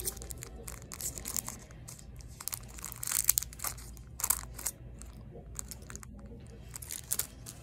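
A chocolate bar wrapper crinkling as it is handled and snipped open with scissors: an uneven run of short crackles and clicks, busiest about three seconds in.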